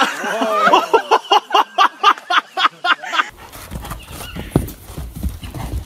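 A woman laughing hard in quick, rhythmic bursts. About three seconds in it cuts to a low rumble and a horse's hooves thudding on sand.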